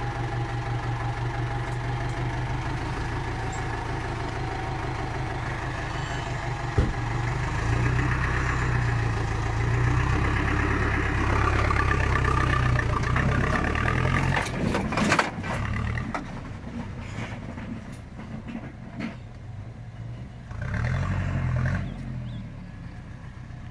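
Vehicle engine running steadily, then working harder for several seconds while a tractor is towed on a strap. There is a single sharp knock about seven seconds in and a brief clatter of knocks around the middle.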